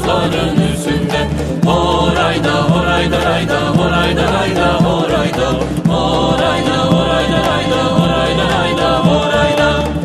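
A Karachay-Balkar song: voices singing over music with a steady low beat, holding longer notes in the second half.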